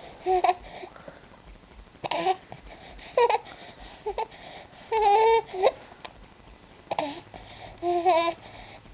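Young baby cooing and babbling in short, high-pitched bursts of vocal sound, with longer coos about five seconds in and near the end.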